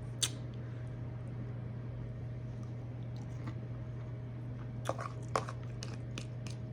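Close-miked mouth sounds of someone chewing a mouthful of rice and spinach, with a few sharp smacks: one about a quarter second in and two around five seconds. A steady low hum sits underneath.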